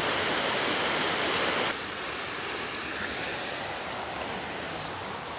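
Swollen Dangari river floodwater rushing fast over a roadside in a steady, full rush of water, somewhat quieter from just under two seconds in.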